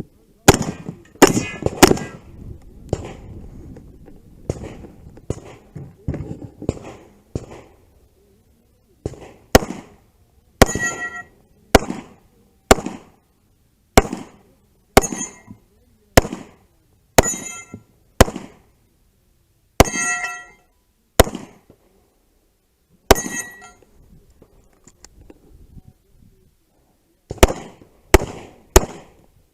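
Gunfire in a competition stage: a string of sharp shots, several followed by the ringing clang of struck steel targets. The shots come in quick clusters near the start and near the end, with a run of shots about a second apart in between.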